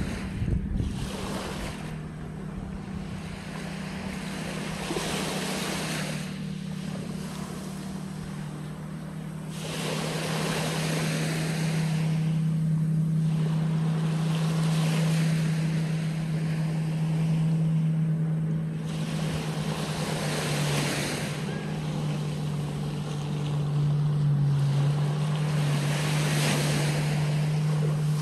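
Small waves washing up on a sandy beach, swelling and fading every few seconds, over the steady low drone of a motorboat engine out on the water. The engine note wavers in pitch a little past the middle.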